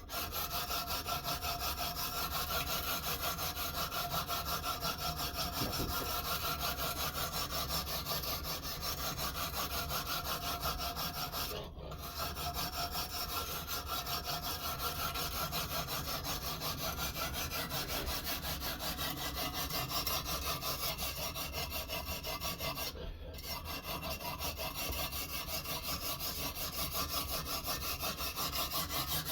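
Knife blade being sharpened on a guided-system sharpening stone: quick back-and-forth scraping strokes of stone on steel, kept up steadily and broken twice by a brief pause, once near the middle and again about three quarters of the way through.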